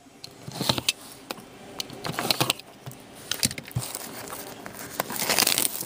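Plastic shrink wrap being picked at and torn off a sealed trading card box: irregular crinkling, scratching and small ticks, with the loudest burst of rustling about five seconds in.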